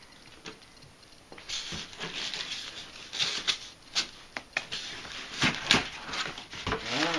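Cardboard packaging being handled: rustling, scraping and sharp knocks as the inner flaps and dividers of a large kit box are pulled open. It starts about a second and a half in, after a quiet moment.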